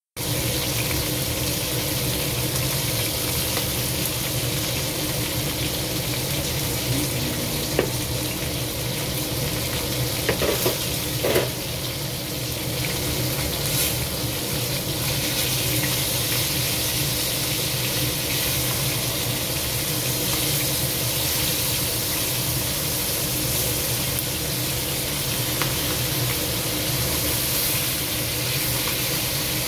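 Crab legs and shellfish sizzling steadily as they fry in oil in a wok, with a few clicks of tongs against the pan about eight and ten to eleven seconds in as the pieces are turned.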